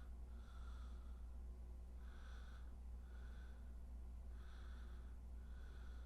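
A person breathing through the nose close to the microphone, soft in-and-out breaths about every two and a half seconds, over a steady low electrical hum.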